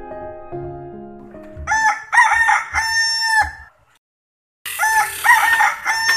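Soft piano music fades out, then a rooster crows a long cock-a-doodle-doo; after a brief gap of silence it crows again.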